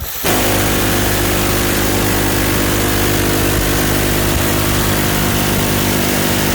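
Machine gun firing one long, unbroken burst that cuts in abruptly and holds at a steady, loud level, the shots merging into a continuous buzz.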